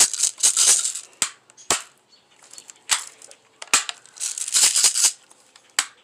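Gun-handling noise: several sharp clicks and knocks, with two brief rasping, rattling rustles.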